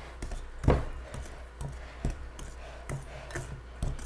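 A Danish dough whisk working flour into stiff cookie dough in a glass bowl: scraping strokes with irregular knocks against the bowl about twice a second, the loudest a little under a second in.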